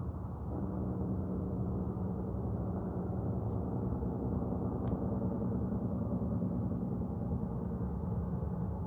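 Steady low roar of industrial machinery at the Casting Solutions foundry, a drone with several steady tones layered in it, which the uploader puts down to failing equipment.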